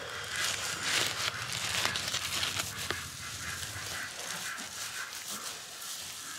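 Hands stirring and scooping sprouted rice grains in a woven plastic sack: a grainy rustling and crunching, busiest in the first few seconds, then softer.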